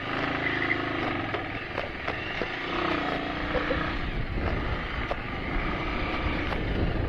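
Bajaj Avenger 220 motorcycle's single-cylinder engine running while ridden, its pitch shifting a little about three seconds in. A steady rush of wind noise runs over it, with scattered small knocks and rattles from the rough road.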